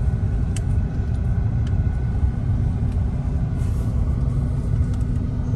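Steady low road and engine rumble of a car being driven, as heard inside the cabin.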